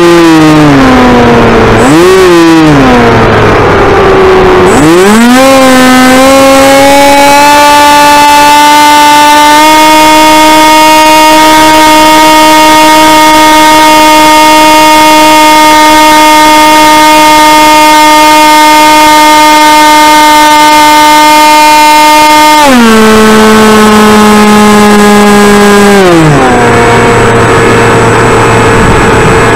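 Electric motor and propeller of a radio-controlled flying wing, heard loud from its onboard camera. The whine falls and dips in the first few seconds, climbs steeply about five seconds in to a steady high-throttle drone, then drops in two steps near the end as the throttle is eased back.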